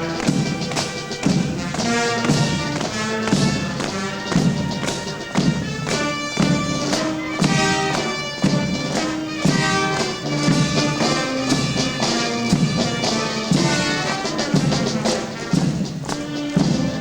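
A military band playing a march, with wind and brass melody over a steady drum beat.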